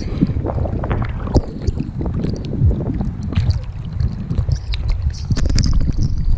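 Water sloshing and splashing close against a GoPro held at the surface as a swimmer moves through the sea alongside a dolphin, with wind buffeting the microphone.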